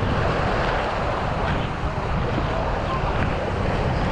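Steady seaside noise of surf washing on the shore, with wind rumbling on the microphone.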